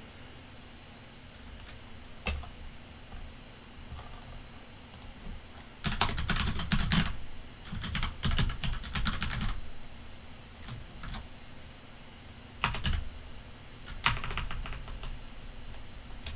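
Typing on a computer keyboard in bursts of quick keystrokes with pauses between, the longest run coming about six to nine and a half seconds in.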